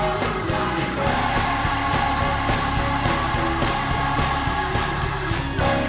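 Live gospel music: a male soloist holds one long sung note over the band's steady beat.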